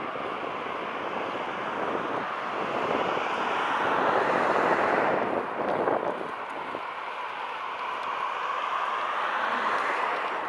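Steady rushing wind noise on a microphone carried along with a moving bicycle, mixed with street noise. It swells around four to five seconds in, then eases.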